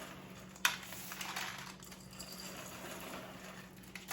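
Dry Cheerios cereal rustling as it is measured out, after one sharp click a little over half a second in.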